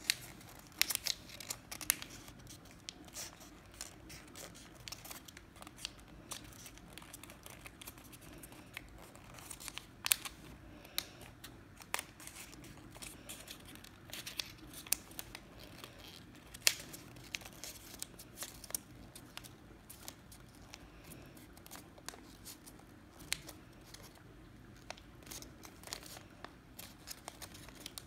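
Paper being folded and creased by hand: irregular sharp crinkles and snaps of stiff paper, over a faint steady hum.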